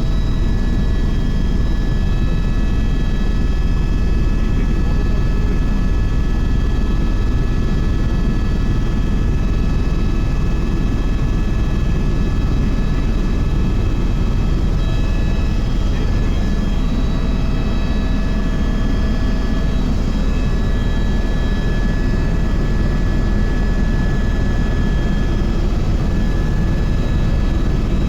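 Helicopter in flight heard from inside the cabin: a steady, loud low rotor and engine drone with several steady high whining tones above it.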